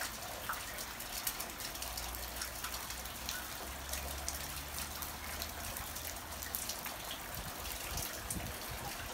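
A shower of small hail with rain: a steady hiss with many short, sharp ticks of hailstones striking.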